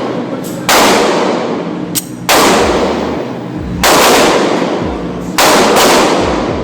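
Gunshots at a shooting range, five in all, coming roughly every one and a half seconds, the last two close together. Each one cracks sharply, then fades in a long echo.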